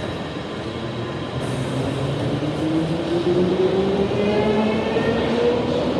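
London Underground Piccadilly line 1973 Tube Stock train pulling out of the platform and accelerating away. Its traction motors whine over the rumble of the wheels, and the whine rises steadily in pitch as it gathers speed.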